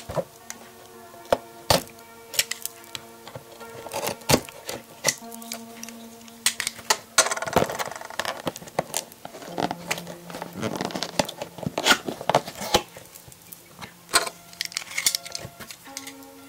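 Sticky tape being peeled and torn off a cardboard box, with sharp clicks and crackles of the cardboard flaps being handled, densest in the middle. Soft background music plays underneath.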